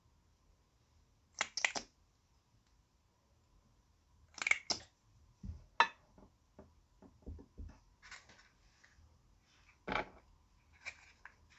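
Short clicks and taps in small clusters: plastic makeup packaging handled over a glass baking dish, with a lip-gloss wand and its cap tapping against the glass and a highlighter compact picked up near the end.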